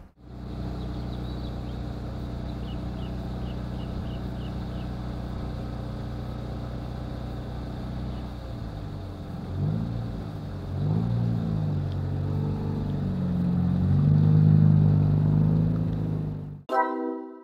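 Toyota Vios's four-cylinder petrol engine idling steadily, then revved in two short blips about ten and eleven seconds in and a longer rise and fall after that; the sound cuts off suddenly near the end.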